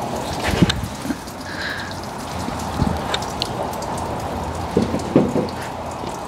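Engine coolant trickling and dripping from the disconnected thermostat-housing hose into a drain bucket, an irregular patter of drops as the flow thins to a trickle.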